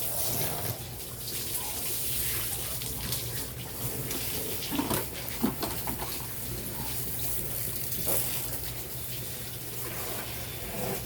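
Water running steadily with a hiss, with a few light knocks about five seconds in and again about eight seconds in.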